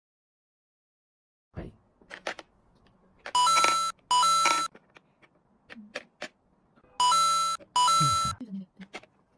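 Electronic beeping in pairs, like an alarm clock: two beeps about half a second long each, repeating every few seconds, with light clicks and taps between them.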